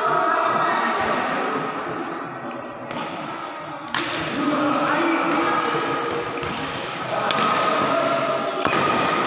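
Badminton rackets striking the shuttlecock during a doubles rally, a series of sharp smacks a second or two apart, the loudest about four seconds in, over a steady murmur of voices echoing in the hall.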